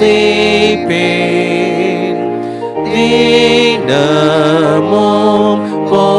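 A man singing a Tamil church hymn slowly in long held notes, with instrumental accompaniment holding steady notes beneath his voice.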